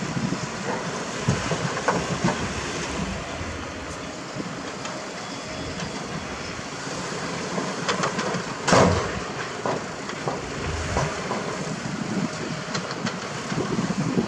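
Light dump trucks with raised beds tipping out soil and rock, their engines running under a continuous rattle and clatter of stones sliding out. A loud bang about nine seconds in stands out above it.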